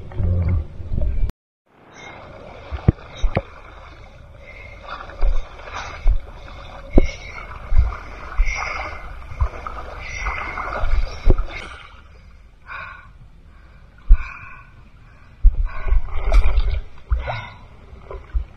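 Shallow seawater sloshing and splashing, with scattered knocks and thumps; the sound cuts out briefly about a second in.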